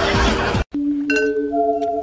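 Background music with a rapping voice cuts off suddenly, and after a short gap a chime-like ringing sound effect starts: several steady bell tones holding on, with a few light clinks.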